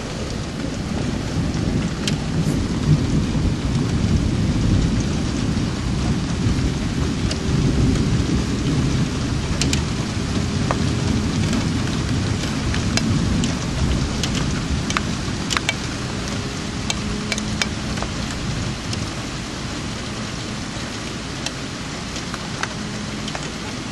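Rain falling steadily through a long low rumble of thunder that builds over the first few seconds and dies away after about twelve seconds. Scattered sharp ticks sound throughout.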